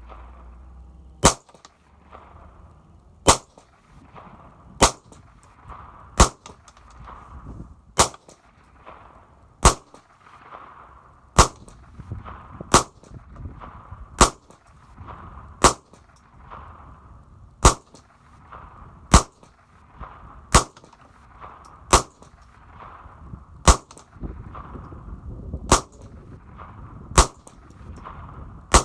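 .22 rifle fired in a steady series of single shots, about one every one and a half seconds, roughly eighteen in all.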